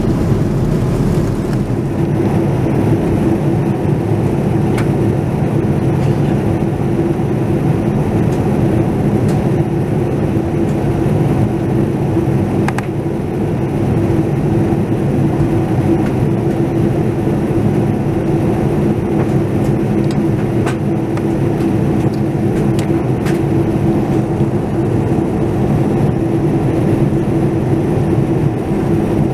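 Steady cabin noise of a Boeing 787-9 in cruise, heard inside the cabin: the Rolls-Royce Trent 1000 engines and rushing airflow make an even drone with a steady low tone, and a few faint clicks now and then.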